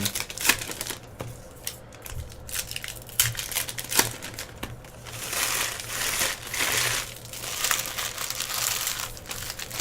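Plastic wrapping on trading-card packaging crinkling and crumpling as it is handled, with scattered clicks and taps, and longer stretches of rustling in the second half.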